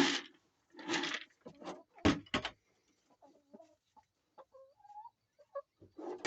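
Chickens clucking softly in short calls through the second half. In the first two and a half seconds there are four short scuffing or rustling noises, the loudest sounds here.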